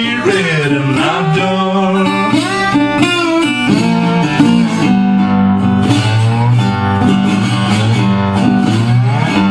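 Resonator guitar playing a blues slide passage. The notes glide up and down between pitches over a steady bass on the low strings.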